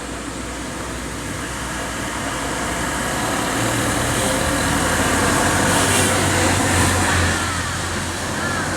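A motor vehicle's engine running as it drives past on the road, with tyre and road noise. It grows louder over the first few seconds, is loudest around five to seven seconds in, then eases off.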